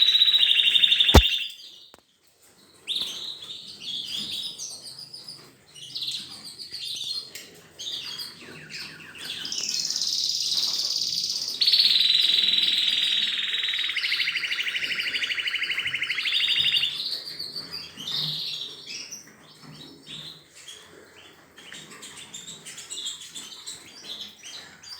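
Canaries singing: long rolling trills, each held at a steady pitch for a second or more, follow one another, with shorter chirps between them. There is a single sharp click about a second in.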